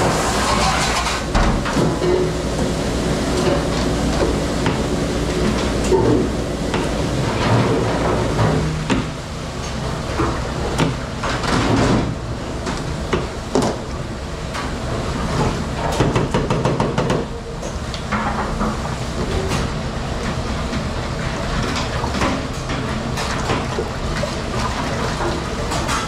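Commercial dish-pit pre-rinse sprayer hissing on a stainless sheet pan for about the first second, then repeated knocks and clatter of metal pans and dishes being handled in the sink, over the steady hum of the kitchen's dish machine.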